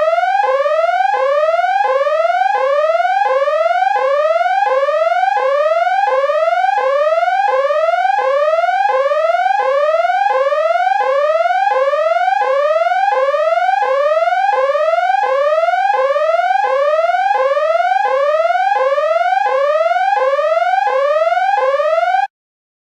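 Electronic siren sounding a fast, repeating rising wail: about three sweeps every two seconds, each climbing in pitch and then dropping back. It cuts off abruptly near the end.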